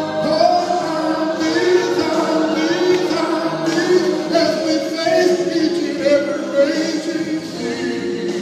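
Gospel song with a choir singing slow, held notes.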